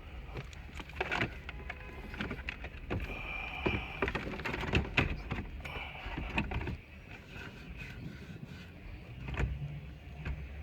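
Hands working on a car radio's wiring harness: irregular clicks, taps and rustles of wires, connectors and plastic being handled and tucked in.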